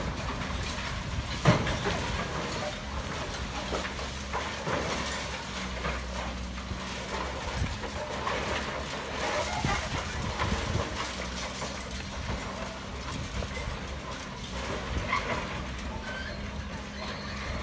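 High-reach demolition excavator's engine running steadily while its arm works into a concrete silo wall, with scattered knocks and clatter of breaking and falling concrete. One loud knock comes about a second and a half in.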